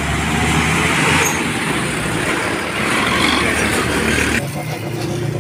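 Light cab-over truck's engine running as it drives past close by, with road-traffic noise from motorcycles around it. The loud passing noise drops off abruptly about four and a half seconds in.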